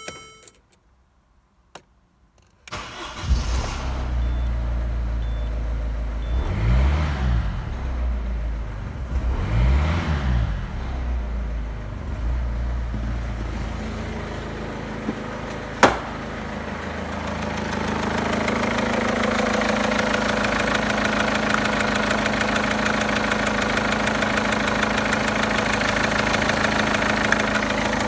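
Citroën C3's 1.4 HDi four-cylinder turbodiesel (DV4TED4) cranking and catching about three seconds in, then idling. It is revved briefly twice, rising and falling each time, before settling back to a steady idle. A single sharp click comes about halfway through, and over the last third the idle sounds fuller in the middle range.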